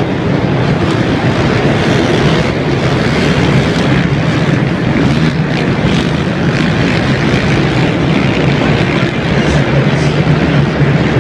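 Several racing ATV engines running hard together, a loud, steady drone filling the arena.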